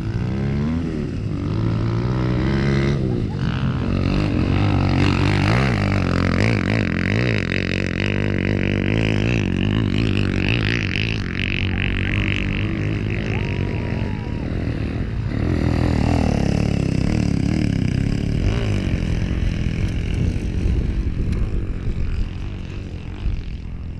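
Several motocross bikes' engines revving on a dirt track, their pitch repeatedly rising and falling as the riders accelerate and ease off, with more than one bike heard at once.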